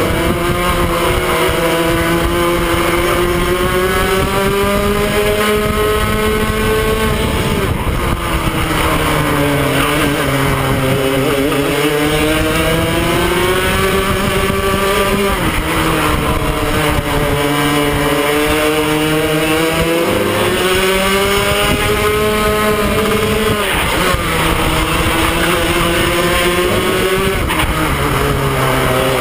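Rotax Max 125cc two-stroke kart engine at racing speed, heard onboard with wind noise. Its pitch climbs along each straight and drops sharply under braking for the corners, about four times.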